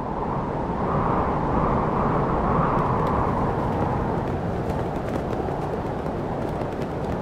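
A steady, low rumbling noise with no clear tone, with faint crackles or ticks over it in the second half.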